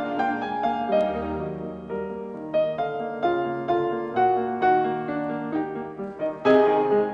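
Piano music: a piano plays a classical-style passage of struck notes and chords, with a louder accented chord near the end.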